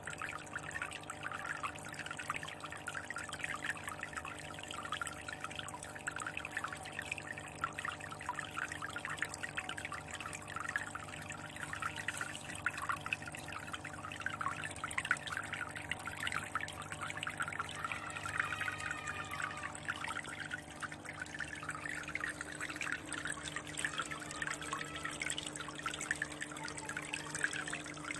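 Water trickling and splashing steadily into a fish tank from a spout, over a steady low hum.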